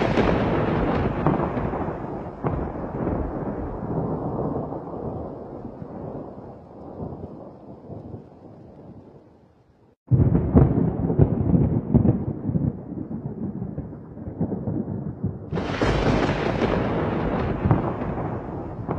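Thunder, three peals. The rumble of a clap rolls and fades over about nine seconds; a new crackling peal breaks in suddenly about ten seconds in; and a sharp crack about fifteen and a half seconds in rolls into a long rumble.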